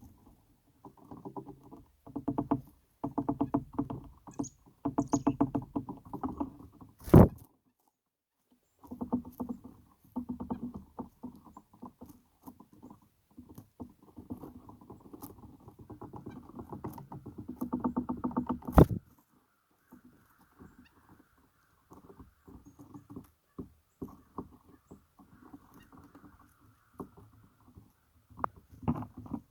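Close, crackling rustling in irregular runs, with two sharp loud knocks about seven seconds and about nineteen seconds in.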